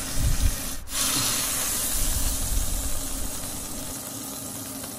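Duck quarters sizzling skin-side down in a dry nonstick pan with no oil, the skin searing and rendering its fat. A steady hiss that breaks off briefly about a second in, then slowly fades.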